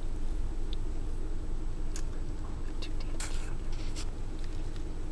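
Puppies mouthing and chewing on each other in a wire crate: scattered soft clicks and brief rustles over a steady low background rumble.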